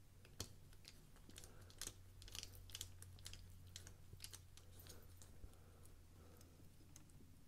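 Faint, irregular small clicks and ticks of a screwdriver bit and pivot screw being worked into a WE Roxi 3 folding knife during reassembly, thinning out after about five seconds, over a low steady hum.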